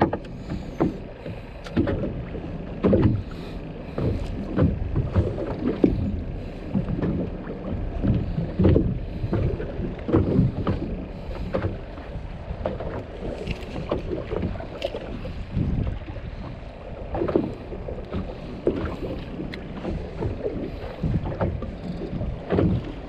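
Water slapping against a small fishing boat's hull as it rocks on a choppy sea, with wind on the microphone and irregular low knocks and thumps.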